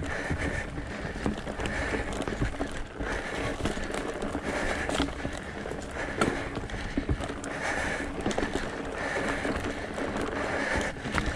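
Mountain bike climbing a rough dirt and stone trail: tyres crunching over gravel and rocks, with frequent irregular knocks and rattles from the bike.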